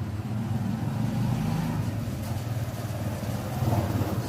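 A steady low engine rumble with a fast, even pulse, like a motor vehicle running.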